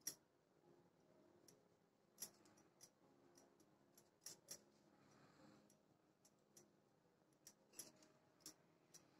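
Near silence, broken by about ten faint, scattered clicks and ticks spread unevenly through the quiet.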